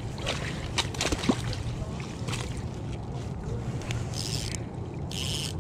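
Water sloshing around a float tube over a steady low rumble, with clicks and rustles from handling a landing net that holds a just-caught trout. Two short hissing bursts come near the end.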